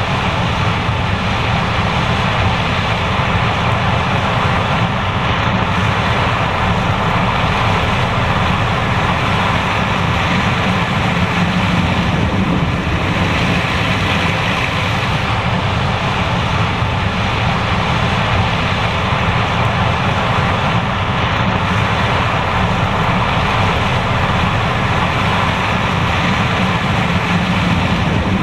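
John Deere S780 combine harvester running steadily while harvesting corn, its engine and threshing machinery making an even, unbroken drone.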